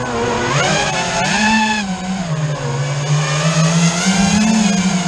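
A motor running with a whining pitch that rises and falls as the throttle is opened and eased, climbing about a second in and again near the end.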